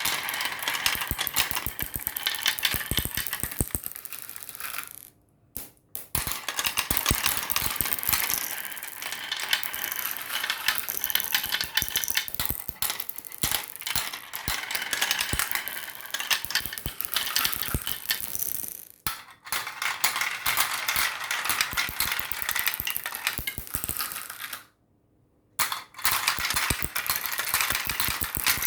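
Many marbles rolling and clattering down a marble run track in a dense, rapid stream of clicks, breaking off briefly three times.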